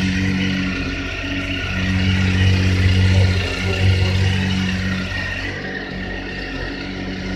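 Triumph Daytona 955i's fuel-injected 955 cc three-cylinder engine idling steadily while it warms up after a cold start.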